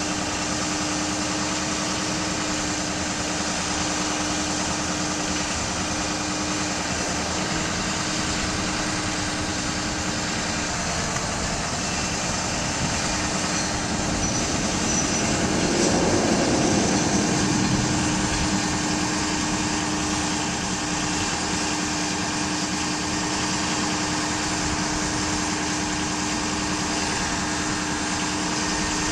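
2006 Ford F550 bucket truck's engine running steadily while it drives the ETI aerial lift's hydraulics and the boom is raised. There is a constant hum throughout, and the sound swells for a few seconds just past the middle.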